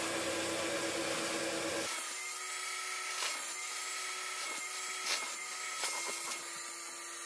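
Carpet-cleaning extraction hand tool sucking rinse water out of a carpet sample: a steady vacuum hiss with a held tone and a few short scraping strokes. About two seconds in, the low rumble drops away and a higher whine takes over.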